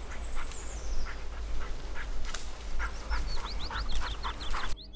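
Rustling footsteps through woodland undergrowth, about two or three a second, over a low rumble of wind on the microphone, with a small bird singing quick high chirps in the second half. The rustling and rumble cut off abruptly just before the end.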